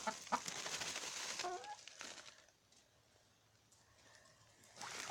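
Hens clucking with rustling and crackling, then a quiet stretch of about two seconds before more clucking near the end.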